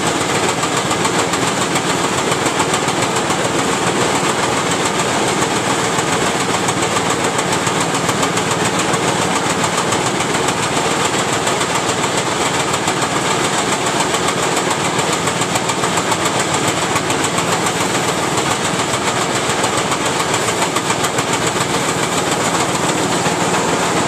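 Grain bin sweep auger running: a loud, steady mechanical noise with a fine rattle that does not change.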